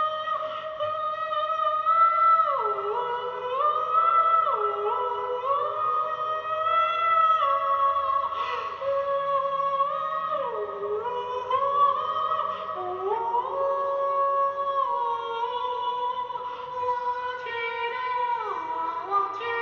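A man singing long, high-pitched held notes without words, dipping down and sliding back up between pitches.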